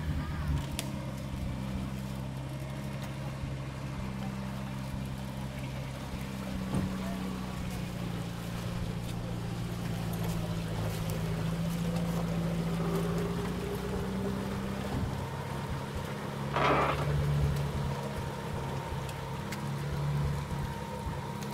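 Off-road 4x4's engine running under load as it drives through deep mud and water, with mud sloshing around the wheels. A brief loud burst of noise about two-thirds of the way through.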